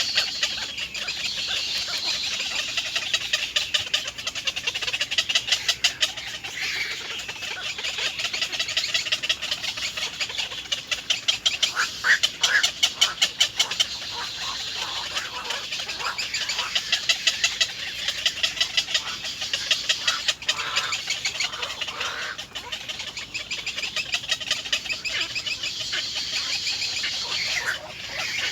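Baby birds in the nest calling continuously in rapid trains of high chirps, swelling in louder pulsing spells: chicks begging to be fed.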